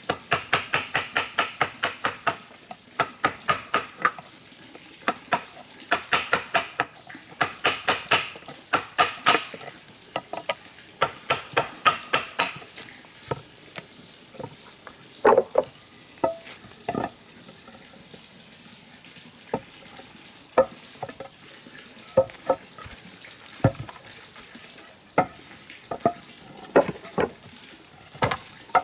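A quick series of sharp clicks or knocks with a faint ringing tone, about four or five a second, for the first dozen seconds, then slowing to scattered single knocks.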